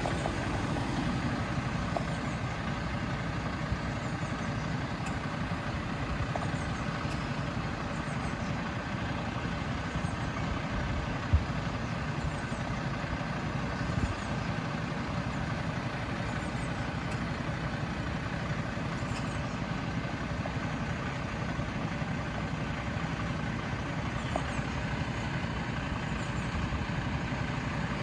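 Mercedes-Benz Citaro city bus idling at a stop, its engine running steadily. A single sharp knock about eleven seconds in.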